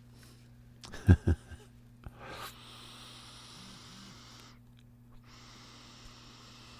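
A lighter clicking about a second in, then long steady breathy hissing as a hit is drawn from a freshly packed cannabis bowl, broken once by a short pause about two-thirds of the way through.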